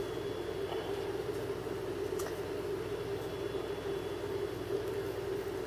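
Steady mechanical hum of room background noise, with a faint tick about two seconds in.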